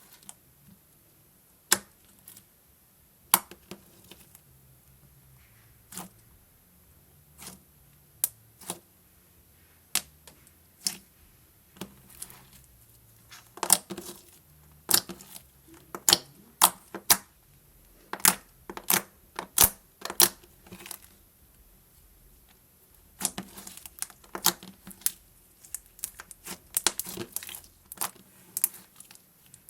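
Slime being handled and squeezed: irregular sharp pops and clicks of air pockets bursting, sparse at first and coming in quick clusters about halfway through and again near the end.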